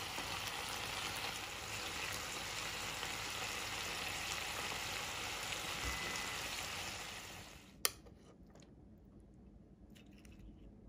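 Reduced sauce sizzling and simmering around beef slices and cherry tomatoes in a frying pan: a steady hiss that cuts off abruptly about three-quarters of the way through. A sharp click follows, then a few faint light clicks.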